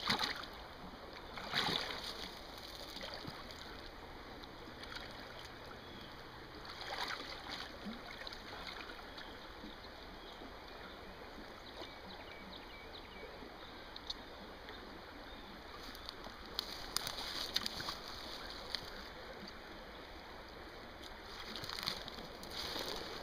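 Creek water sloshing and splashing as a person wades through it in chest waders, in several bursts a few seconds apart over a steady background of moving water.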